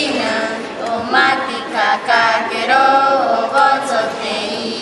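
A group of voices singing a song together, with some notes held and sliding between pitches.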